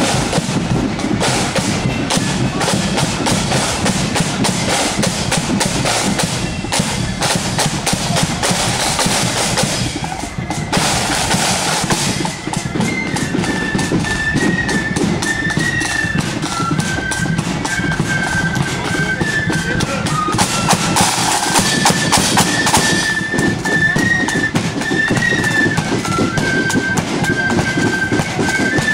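Marching flute band: the side drums and bass drum beat a march, and about twelve seconds in the flutes come in with a high melody over the drumming.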